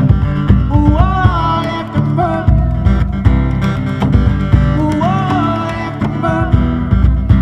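Acoustic band music: strummed acoustic guitar over a low bass line, with a short sliding melodic phrase that comes back several times.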